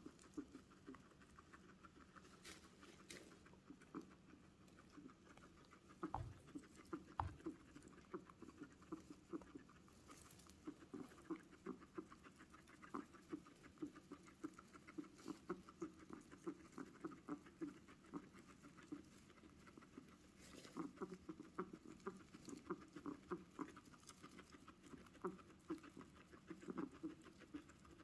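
Guinea pig making a long string of short, quick noises, several a second, more frequent after the first few seconds, with a couple of soft low knocks about six and seven seconds in.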